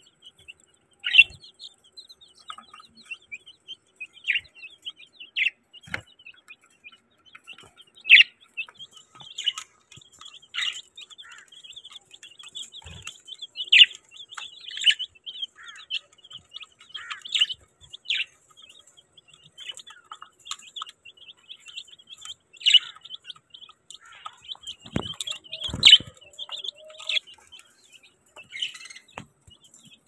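A crowd of baby chicks peeping, a dense run of high, rapid peeps with a louder single call every second or two. A couple of low knocks come near the end.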